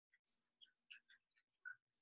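Near silence: room tone with a few faint, scattered soft clicks and rustles.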